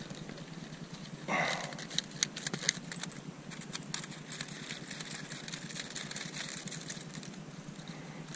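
A plastic bottle float and its fishing line being handled: a rustle about a second in, then a few sharp plastic clicks and crackles, over a steady low hum.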